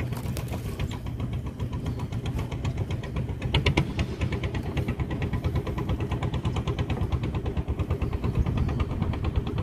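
A small boat engine running steadily with a rapid, even putter that grows a little louder near the end.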